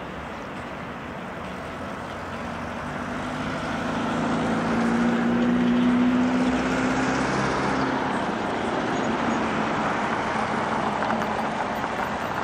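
A motor vehicle driving past on the road, over steady traffic noise: the sound swells over the first few seconds, the engine is loudest about halfway through, then it fades back into the traffic noise.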